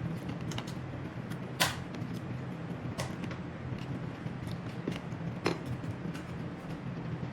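Scattered clicks and knocks of tableware being handled, the loudest about one and a half seconds in and another near five and a half seconds, over a steady low hum.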